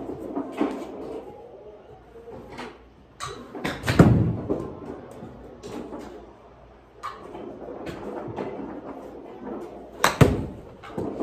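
Golf club striking balls off a practice mat: two sharp hits about six seconds apart, the first the louder, with lighter clicks and knocks around them over a steady room hum.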